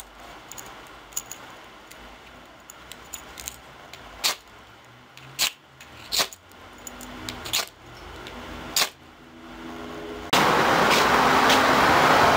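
Small metal clicks and jingles of a ball chain on a keychain being handled, a dozen or so sharp ticks spread over about ten seconds. Near the end this cuts off suddenly and gives way to a loud, steady outdoor noise.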